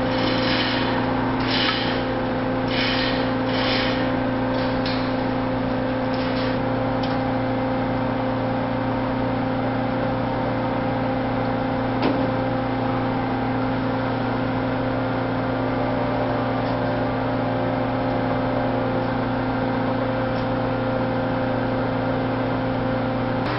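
A large engine running at a steady speed, a constant low hum. Several short hissing bursts come in the first four seconds, and a single sharp click about twelve seconds in.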